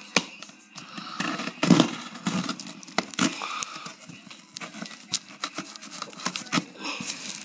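Cardboard shipping box being worked open by hand: irregular scrapes, crinkles and sharp clicks of cardboard and packing tape.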